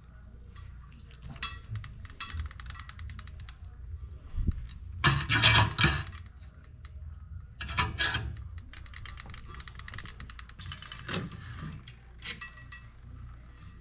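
Small metal parts clinking and rattling in bursts as a riding mower's steel cable, spring and crimp-stop fittings are handled and worked, with louder clattering about five and eight seconds in.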